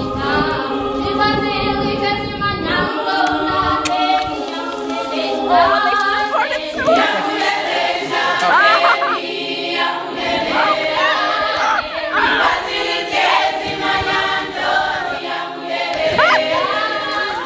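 A group of voices singing together unaccompanied, like a choir.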